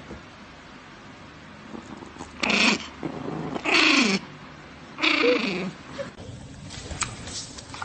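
A pet animal gives three loud calls about a second apart, each sliding down in pitch, followed by a few softer sounds.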